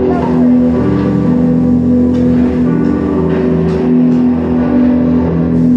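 Film soundtrack music played loud through cinema speakers: a melody of held notes that change every half second or so.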